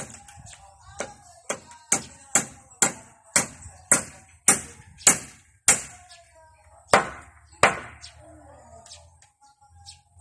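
Hammer blows on a timber roof frame: sharp, ringing strikes at about two a second. The blows stop after about six seconds, then two heavier ones follow and a few light taps.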